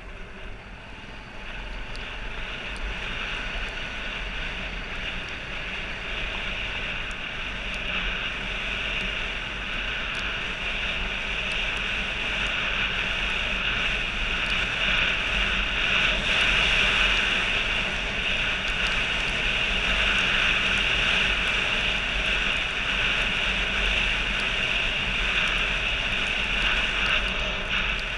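Motorcycle being ridden, its engine running under a steady rush of wind over the helmet camera's microphone; the rush grows louder over the first half and then holds steady.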